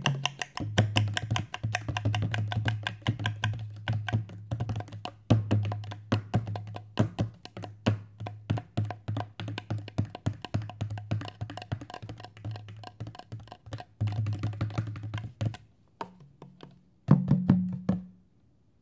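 Hand drums, madal and tabla, played in quick strokes over a deep ringing bass tone that shifts in pitch. The playing drops away about fifteen and a half seconds in, comes back in one last loud flurry, and stops shortly before the end.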